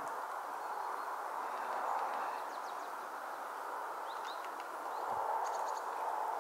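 Steady outdoor background noise, with a few faint, high small-bird chirps about four seconds in and again near the end.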